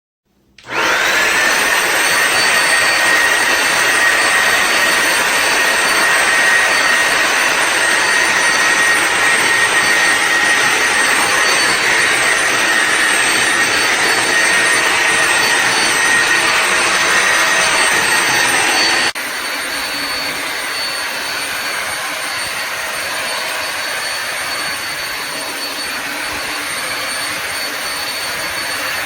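Bissell Symphony vacuum-and-steam-mop's vacuum motor switching on and running with a steady high whine. About two-thirds of the way through the sound drops suddenly to a quieter, duller steady running.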